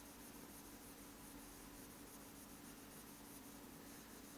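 Near silence: the faint scratch of a stylus colouring on an interactive whiteboard screen, over a steady low hum.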